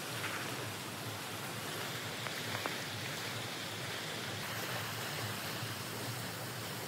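Steady rush of the Vltava river running over small rapids.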